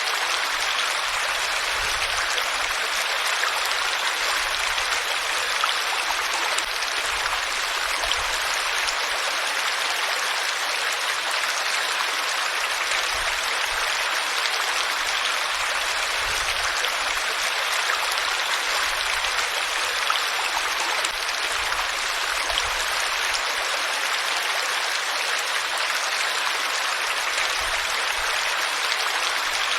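Flowing water running steadily: an even, unbroken rushing of a stream or small cascade.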